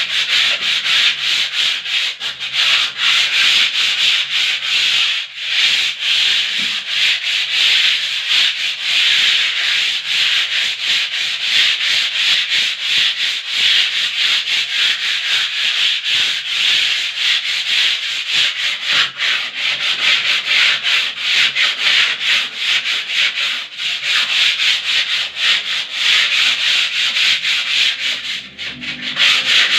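Sanding a skim-coated wall: continuous abrasive rubbing in fast back-and-forth strokes, with a brief pause near the end.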